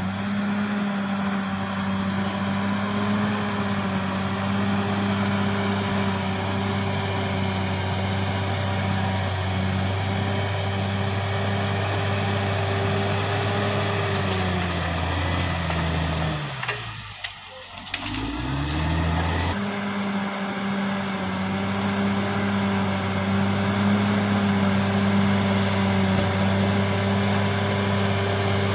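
CAT D6R XL bulldozer's diesel engine running steadily under load; about sixteen seconds in, the engine note drops sharply and climbs back up over a few seconds.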